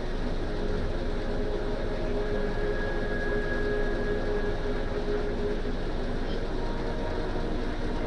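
Steady mechanical hum with a faint held tone running through it.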